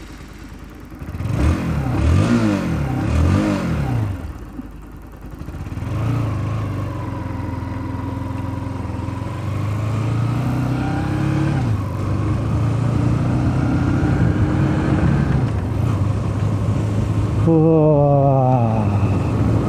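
Motorcycle engine revved in three quick blips, then pulling away and running steadily, its pitch shifting as it changes gear and climbing again near the end as it accelerates.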